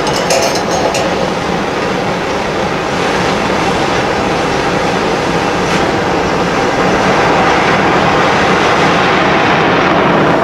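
Oxy-fuel torch flame running with a steady loud hiss while heating seized exhaust manifold studs to free them. A few light clicks come in the first second, and the hiss grows a little louder in the second half.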